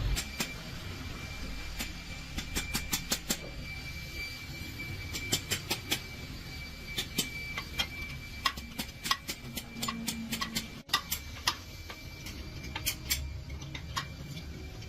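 Sharp metallic clicks and taps in irregular quick clusters, as from hand tools and parts being handled during gearbox repair work, over a steady low hum.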